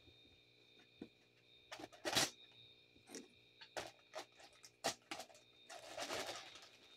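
Scattered clicks, knocks and a stretch of rustling packaging as items are handled and rummaged through in an opened parcel, with a faint steady high whine underneath.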